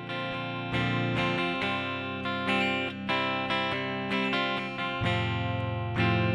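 Background music: plucked guitar playing a melody with strummed chords.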